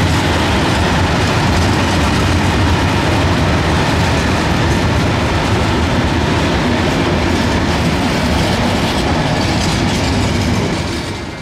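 A train passing close by: a loud, steady rumble of wheels on the rails that dies down near the end.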